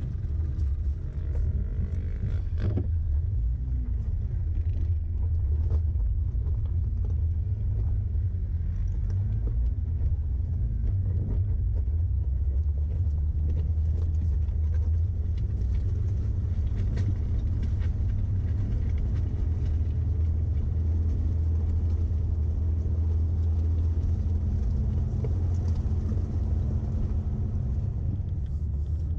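Vehicle engine running as it drives, with a steady low rumble throughout and the engine pitch rising and falling a few times in the first ten seconds or so.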